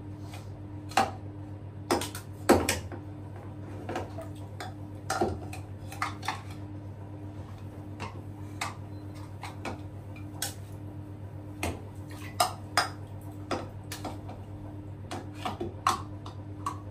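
Irregular sharp clinks and knocks of hard objects, about fifteen to twenty over the stretch and unevenly spaced, over a steady low hum.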